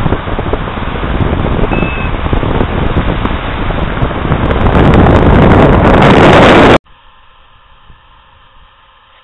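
Wind buffeting the microphone of a camera flying with a paraglider pilot, a loud rushing that grows louder, then cuts off suddenly about seven seconds in, leaving only a faint steady hiss.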